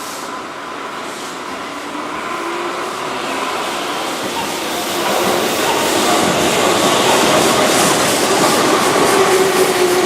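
Keihan 2200-series electric train running past, growing louder until about halfway through, then wheels clicking steadily over rail joints.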